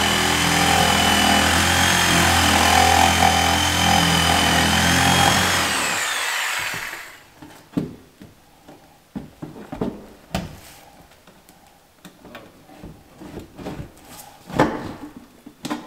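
An electric power tool's motor runs steadily for about five seconds, then winds down and stops. Scattered light knocks and clicks of handling follow.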